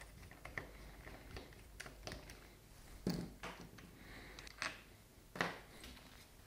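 Faint small clicks of a Torx bolt being turned out of a Wabco air suspension compressor's cylinder head, with three short knocks of the compressor being handled, the loudest about three and five seconds in.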